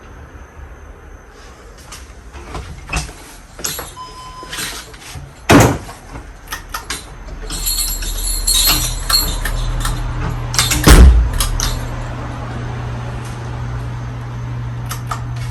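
Clicks and knocks with two loud thumps, a short beep about four seconds in, then a steady low hum from about eight seconds in, fitting the 188x25mm motor of a 52-inch Gulf Coast Tiara ceiling fan being switched on and running.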